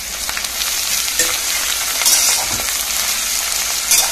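Sliced onions sizzling steadily in hot oil in a stainless steel pressure cooker, stirred with a metal spatula that scrapes the pan now and then.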